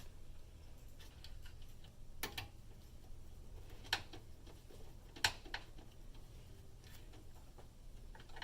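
Sparse light clicks and taps, a second or more apart, from computer parts being handled and a connector being plugged in inside a PC case, over a faint steady low hum.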